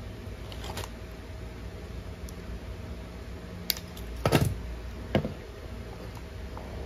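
Handling noise at a workbench: a few light clicks and knocks as tools are handled, the loudest a short knock a little after four seconds in, over a faint steady hum.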